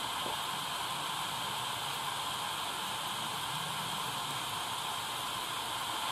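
Tecsun DR-920C portable radio's speaker hissing with steady static as it is tuned up the medium wave band between stations, with no station coming in.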